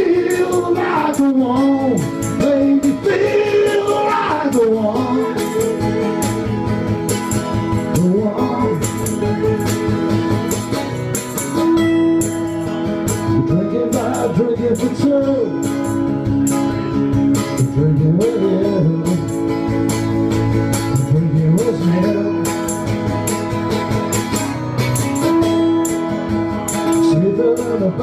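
Two acoustic guitars strummed in a steady rhythm while a man sings the melody, with a second voice joining at times.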